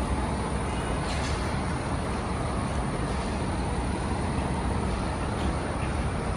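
Steady low rumble of idling trucks and city street traffic, with no rise or fall of a siren.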